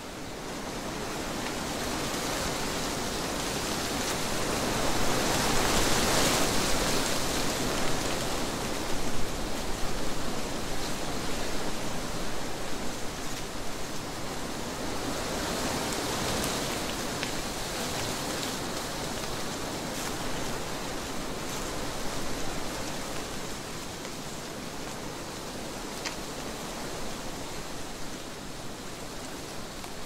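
Wind blowing through trees: a rushing of moving foliage that swells into a strong gust a few seconds in, rises a little again about halfway, then eases off.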